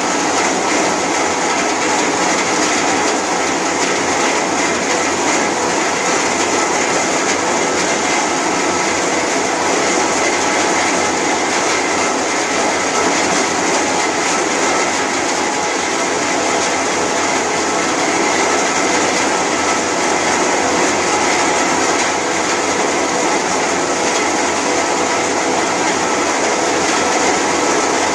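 CSJ-B rubber coarse crusher running, a loud, steady mechanical clatter with a constant hum and no change in level, typical of the machine crushing rubber.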